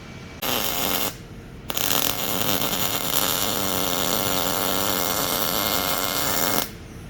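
Silicon bronze brazing a seam on a Jeep's front differential control arm mount: a short burst of steady, dense hissing crackle, a brief pause, then one longer continuous run of about five seconds that stops suddenly near the end.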